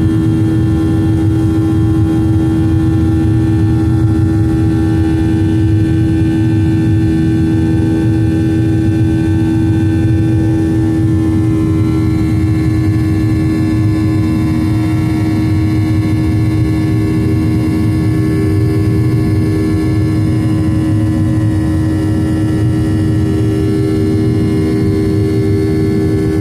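Boeing 737-800's CFM56-7B jet engines heard inside the passenger cabin: a steady, loud drone with a strong hum and several steady whining tones over a low rumble.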